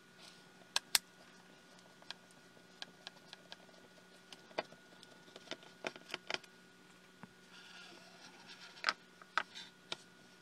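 Scattered small clicks and ticks of a screwdriver and plastic parts as a small screw is worked out of a pocket projector's plastic housing, with a brief scratchy rustle near the end. A faint steady hum runs underneath.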